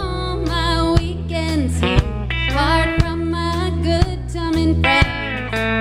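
Live country band: a woman singing over electric guitar, bass, drums and pedal steel guitar, with a drum hit about every second.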